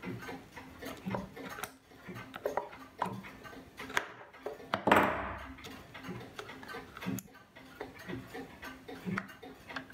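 Wooden-plate, wood-spindle Black Forest clock movement ticking steadily, mixed with small clicks of hands handling the movement and one louder scraping rustle about five seconds in.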